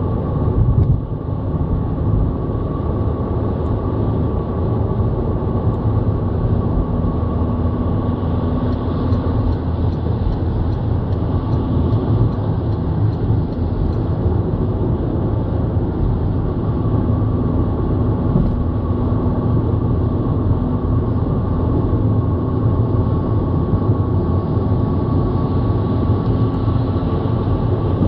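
Steady road and engine noise inside a moving car's cabin: a low rumble of tyres on tarmac with a faint steady whine, and a short thump about a second in.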